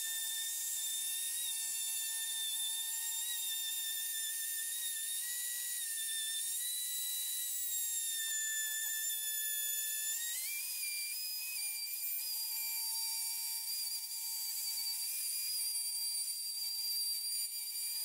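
Bosch electric router running at speed with a high-pitched whine while cutting a juice groove into a cutting board. Its pitch wavers slightly and steps up about ten seconds in.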